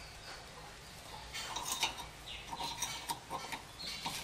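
Small metallic clinks and scrapes of a hand tool working on a car's front wheel hub and brake parts, coming in a few short spells.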